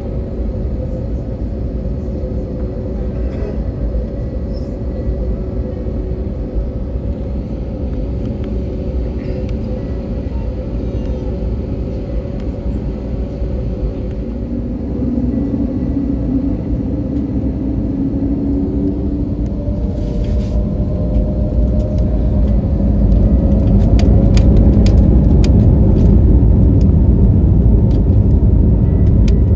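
Jet airliner noise heard from inside the cabin: a steady low rumble with a couple of hums that grows louder partway through, with a few faint clicks near the end.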